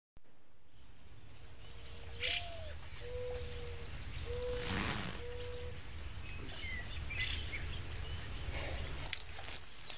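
Outdoor park ambience: a steady high insect buzz and scattered bird chirps over a low rumble, with a bird calling four short low notes, the first sliding up.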